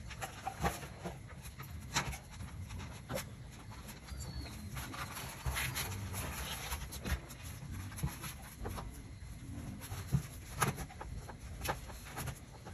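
Dobermann puppies eating chicken wings inside a galvanised metal bin: irregular crunching and clicking of teeth on bone, with bodies scuffling and knocking against the metal.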